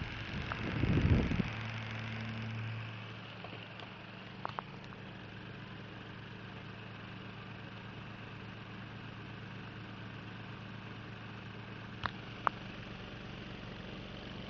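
Steady whirring hum of a propeller clock's motor spinning its LED display arm. A loud low thump about a second in, and a few sharp clicks, two of them close together near the end.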